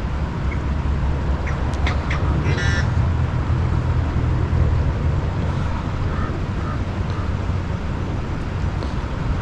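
Steady low rumble of distant road traffic. A few faint clicks and a brief high chirp come about two to three seconds in.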